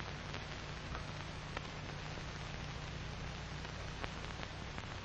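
Steady hiss and low hum of an old film soundtrack, with a few faint scattered clicks of crackle.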